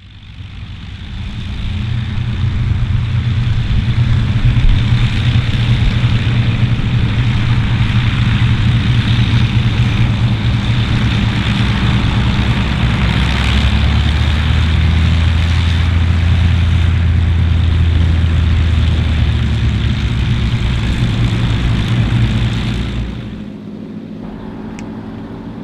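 Avro Lancaster NX611's four Rolls-Royce Merlin V12 engines running together: a loud, steady, low propeller and engine drone. It fades in over the first couple of seconds and drops away about 23 seconds in, leaving a quieter steady background.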